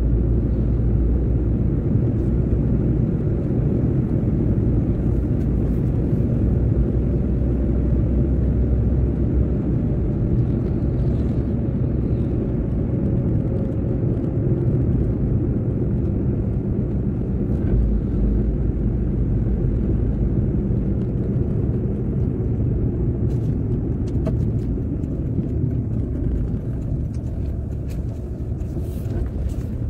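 A car driving along an open road: a steady low rumble of engine and tyre noise, easing slightly near the end.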